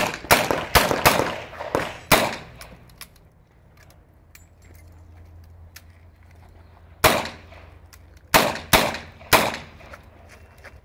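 Pistol shots in two quick strings: about six shots in the first two seconds, then after a pause of several seconds about four more, each a sharp crack.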